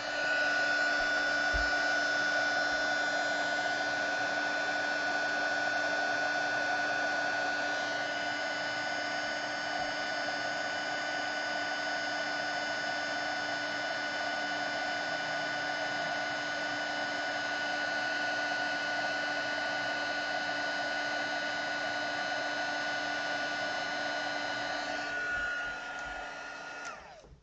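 A craft heat gun (embossing heat tool) runs steadily with a fan whine and rushing air, melting white heat-embossing powder on a stamped sentiment. Near the end it switches off and winds down.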